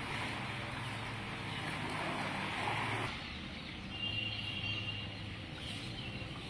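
A small engine running steadily with a low hum, over a hiss of splashing water; the sound shifts about three seconds in.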